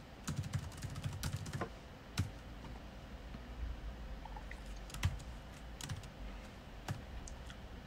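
Typing on a computer keyboard: a quick run of keystrokes in the first second and a half, then a few isolated clicks spaced out over the rest of the time.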